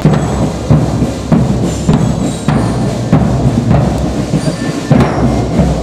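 Marching band drums playing a steady marching beat: bass drums and other drums struck together about one and a half times a second.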